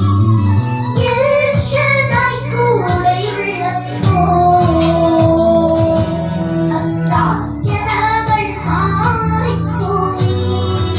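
Two young girls singing a Christian devotional song into microphones, over amplified backing music with a steady beat.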